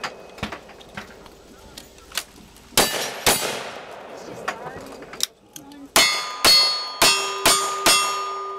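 Gunshots on a cowboy action shooting stage: two shots about half a second apart, then five quick revolver shots in about two seconds. Each of the later shots is followed by the ring of a struck steel target, and the ringing carries on after the last shot.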